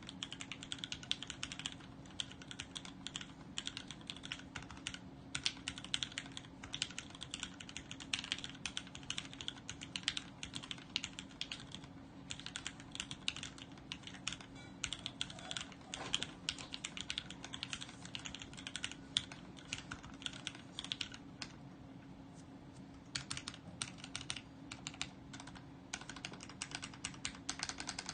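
Typing on an Adelais mechanical keyboard fitted with vintage black Cherry MX linear switches on an FR4 plate and dye-sublimated keycaps. Fast, irregular keystrokes clack continuously, with a short pause about three quarters of the way through, over a faint steady hum.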